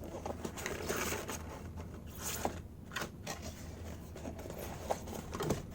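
Model-ship packaging being opened by hand: irregular scrapes, rustles and sharp clicks.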